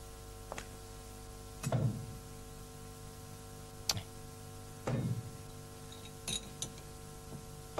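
A steady low hum under a few quiet handling sounds: a drinking glass lifted from a bedside table with a sharp clink about four seconds in, and set back down with light clicks a couple of seconds later. Two soft low thuds come before and between them.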